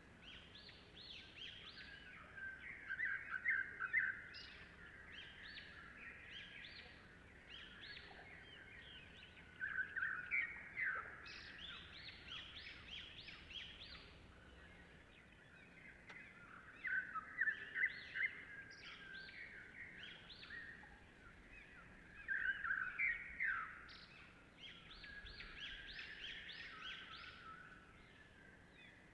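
Birds singing: bursts of rapid, high chirping phrases every several seconds over a faint steady background.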